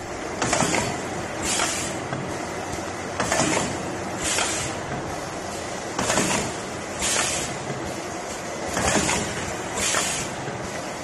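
Paper clamshell container forming machine running: its press strokes in pairs about a second apart, each a clack with a burst of hiss, the pair repeating roughly every three seconds over a steady mechanical hum.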